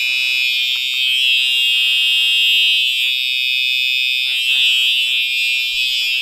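Simplex TrueAlert fire alarm horn sounding on continuous: a loud, steady electronic buzz-tone that switches on abruptly. It is run on 12 volts, so it is quieter than normal.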